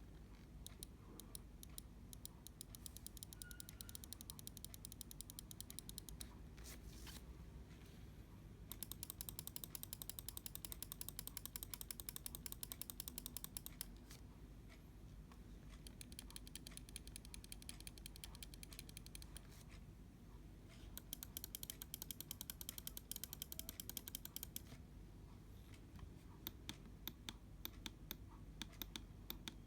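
Logitech computer mouse buttons clicked rapidly in runs of several seconds each, with short pauses between the runs.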